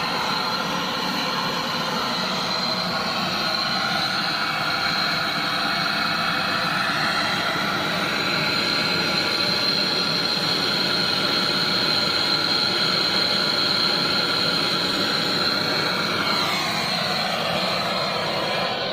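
Gas torch flame burning with a steady hiss and a thin whistle while a leaking air-conditioner pipe is brazed, shut off suddenly right at the end.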